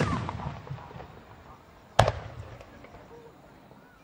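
Two aerial firework shells burst about two seconds apart. Each is a sharp bang, and after the first comes a rolling, echoing rumble with scattered crackle that slowly fades.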